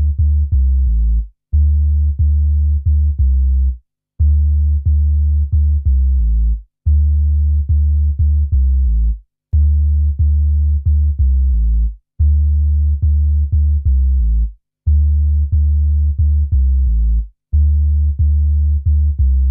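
Electronic background music: a deep synth bass line on a drum-machine beat, in short repeating phrases separated by brief gaps, cutting off abruptly at the end.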